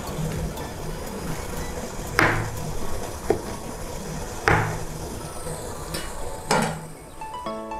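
Kitchen knife chopping a log of potato gnocchi dough into pieces on a plastic cutting board: four short knocks, one of them fainter, over a steady low hiss.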